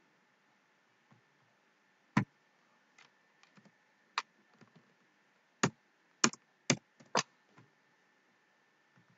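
Computer keyboard keystrokes and mouse clicks: single sharp clicks about two and four seconds in, then four quick loud keystrokes in a row past the middle, with a few fainter taps between.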